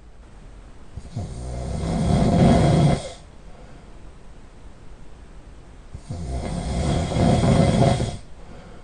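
A man snoring heavily in his sleep: two long, loud snores about five seconds apart, each growing louder over about two seconds and then stopping abruptly, with quieter breathing between them.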